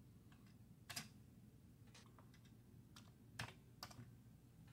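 Keys on a Commodore 64 keyboard pressed one at a time: about seven separate clacks spread unevenly over a few seconds, two of them clearly louder than the rest, one about a second in and one a little past three seconds in.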